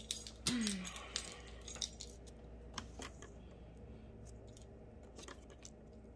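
Paper cut-outs and a glue stick handled on a wooden desk. A brief rustle and squeak about half a second in, then a few scattered small clicks and taps.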